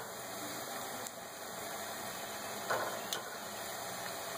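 Besan pakoras deep-frying in hot oil in an iron karahi: a steady sizzle, with a couple of light clicks as a slotted spoon turns them.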